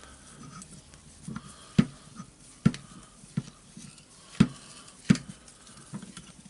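Sharp metallic clicks and knocks, one every half second to a second, from hand tools and a screw being turned to press a part off an electric motor's armature.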